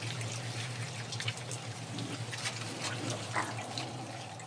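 A crowd of raccoons eating together: dense, wet chewing and crunching full of quick clicks, over a steady low hum.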